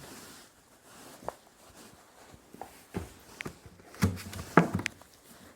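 Footsteps with scattered light knocks and thumps at an irregular pace, the loudest cluster about four seconds in.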